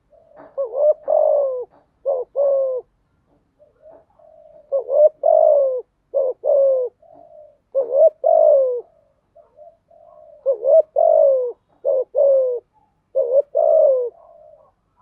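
Spotted dove (chim cu gáy) singing its cooing song. It gives three repeated phrases, each a longer gliding coo followed by shorter clipped coos, with brief pauses between the phrases.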